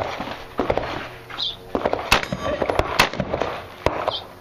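Rifle shots fired at steel targets: about six sharp cracks, spaced unevenly from under half a second to about a second apart.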